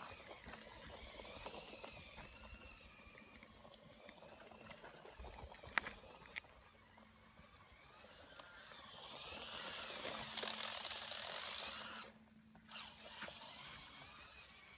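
Small electric motors and gearing of a motorized Lego Technic buggy whining, the pitch rising and falling as it drives, over a steady hiss of tyres on gravel and grass. There is a sharp click about six seconds in, and the sound drops out briefly near twelve seconds.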